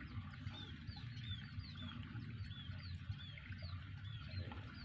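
Birds chirping over and over in short, high, arched notes, about three a second, over a faint low rumble.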